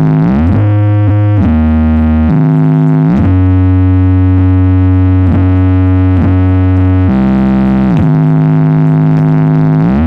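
A large Blizzard Audio stage sound system playing a loud synthesizer bass line during a sound check. Long held low notes slide up or down into the next pitch about once a second.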